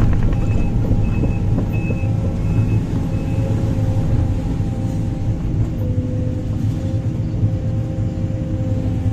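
Sumitomo 490 hydraulic excavator working: its diesel engine and hydraulics run with a steady low rumble and a hydraulic whine that shifts pitch about six seconds in. A high beep repeats about every half second during the first three seconds.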